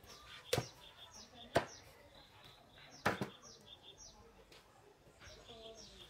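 Meat cleaver chopping through a roasted pig's head onto a round wooden chopping block. There are three sharp chops, about half a second, a second and a half, and three seconds in.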